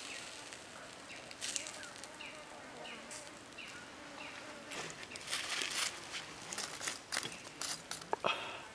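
Rustling and clicking of hands handling a skewer among dry leaves, denser and louder in the second half. Behind it, short falling chirps repeat about twice a second.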